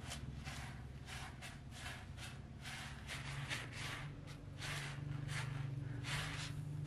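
Dry uncooked rice being raked and swept by hand across a white sheet as the grains are picked over: a run of short rustling scrapes, about two or three a second, over a low steady hum.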